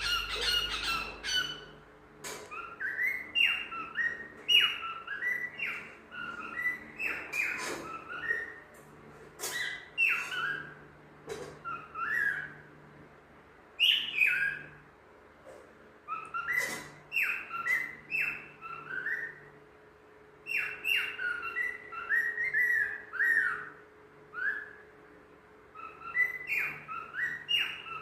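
A cockatiel singing: phrases of short, clear whistled notes that slide up and down in pitch, repeated with brief pauses between them.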